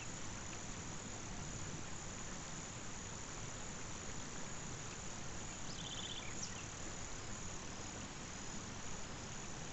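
Steady high-pitched insect chirring over an even background hiss, with a brief rapid trill about six seconds in.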